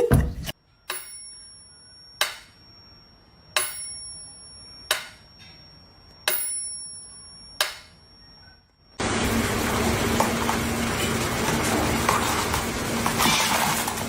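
Six sharp clinks about a second and a half apart, several leaving a high ringing tone like a struck bell or glass. About nine seconds in it cuts suddenly to a loud, steady rushing noise with a low hum.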